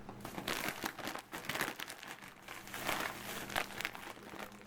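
Plastic grocery packaging crinkling and rustling in irregular strokes as items are handled.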